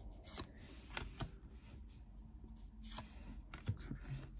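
Pokémon trading cards being flicked through by hand, each card slid from the front of the stack to the back, giving a few short, soft card snaps and rustles.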